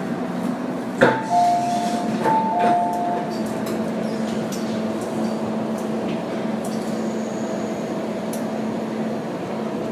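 Steady hum inside an MTR M-train car standing at a platform. A sharp click comes about a second in, then a two-note falling chime sounds twice.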